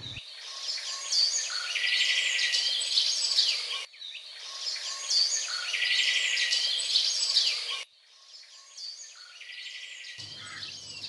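Recorded birdsong, a mix of chirps, whistled sweeps and a fast trill, looping so that the same passage of about four seconds plays twice before fading to a quieter stretch.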